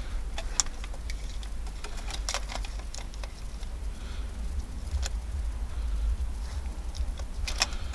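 Scattered light clicks and knocks of a metal oil filter wrench being worked over an oil filter in the engine bay, over a low steady rumble.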